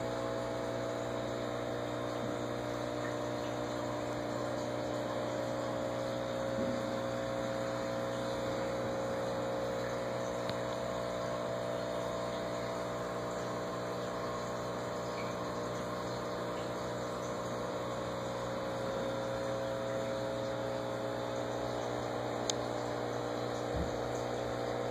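Aquarium filter pump running steadily: a constant motor hum with the wash of moving water over it.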